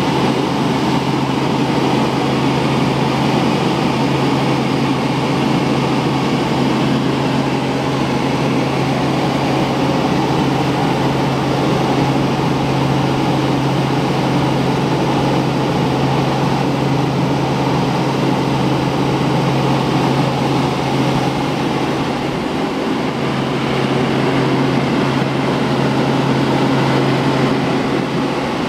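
Helicopter engine and rotor noise heard from inside the cabin: a steady drone with a constant low hum.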